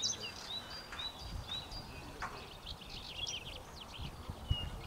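Birds chirping and singing, many short high whistles and trills, over a low rumbling background noise.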